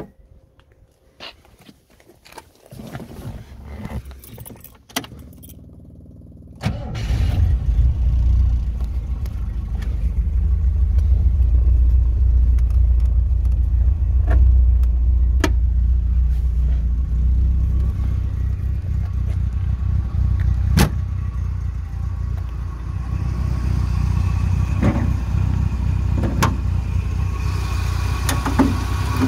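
Keys jangling and a few clicks, then about seven seconds in the 1971 MGB GT's 1.8-litre B-series four-cylinder engine starts and settles into a steady idle.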